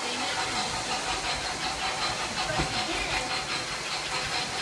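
Electric model trains running on the layout track: a steady motor hum and hiss with rapid, light, evenly spaced clicking from the wheels on the rails.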